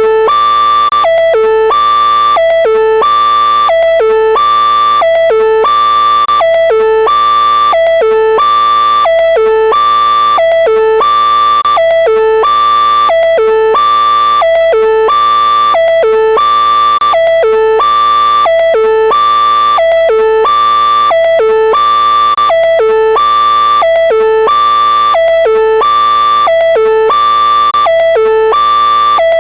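Synthesized electronic alert tone run through a vocoder, looping steadily: a high note stepping down through lower notes, repeating about every one and a half seconds at a constant loud level.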